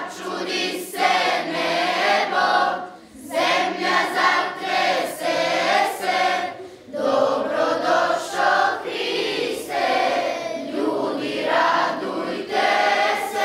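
A group of children singing together as a choir, in sung phrases broken by short pauses about three and seven seconds in.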